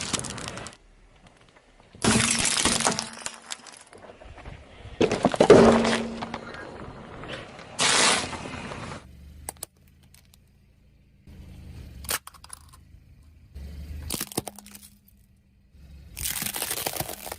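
Objects cracking and breaking under a car's tyres: three loud crunching bursts in the first half, then scattered sharper cracks and one more burst near the end.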